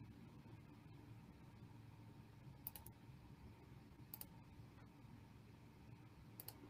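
Three faint computer mouse clicks, each a quick press-and-release, a second or two apart, over near-silent room tone.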